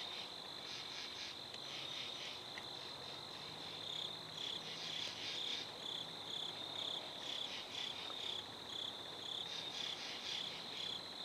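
Crickets and other night insects calling: a steady high-pitched trill with rhythmic chirping over it, about two chirps a second.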